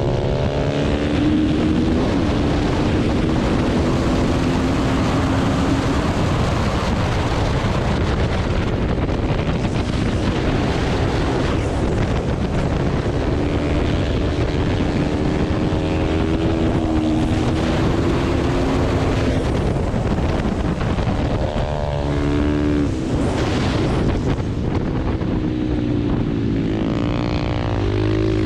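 Supermoto motorcycle engine at racing speed, its pitch climbing through each gear and dropping at the shifts, several times over, with heavy wind noise on the onboard microphone.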